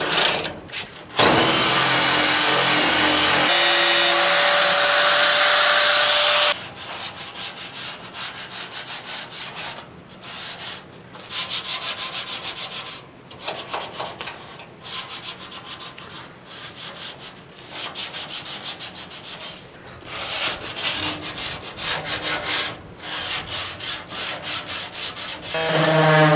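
A hand-held power tool with an abrasive wheel runs steadily against the edge of a rusty steel body panel for about five seconds, then stops. It is followed by rhythmic back-and-forth rubbing strokes, a couple per second, of hand sanding on the sheet steel. Near the end a random-orbit sander starts up.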